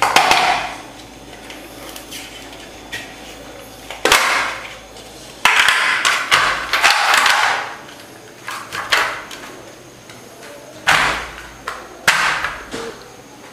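Frozen coffee ice cubes clattering and knocking in a clear plastic box as a hand picks through them. The sound comes in several bursts, the longest a rattle of about two seconds.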